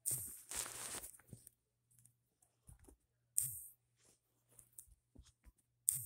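Close handling noise: a blanket and hands rustling and brushing against the phone, a second-long rustle at the start, sharper rustles about three and a half and six seconds in, and scattered small taps and clicks between.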